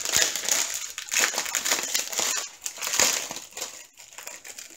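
Clear plastic packet of diamond-painting drill bags crinkling as it is handled, an irregular rustle that eases off near the end.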